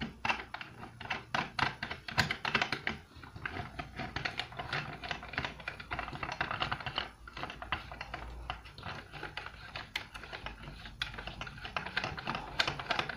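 Quick, irregular small clicks and light knocks of a lampshade and its plastic fitting being twisted and rattled on a lamp's bulb holder to work it loose.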